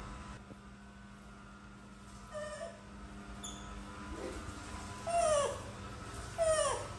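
Newborn kitten mewing as it is handled: faint cries at first, then two loud cries about five and six and a half seconds in, each falling in pitch.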